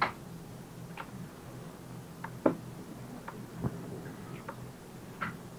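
About nine light clicks and taps at irregular spacing, the sharpest about halfway through, over a steady low hum.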